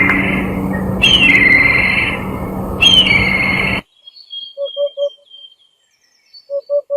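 Birds calling, from two spliced recordings. First a trilled call, repeated three times over steady background noise and a low hum, cuts off suddenly just over halfway through. Then, against near silence, come a thin run of high notes and two sets of three short, low hooting notes.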